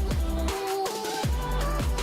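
Electronic background music with a deep bass, a regular heavy beat of drum hits that drop in pitch, and a synth melody.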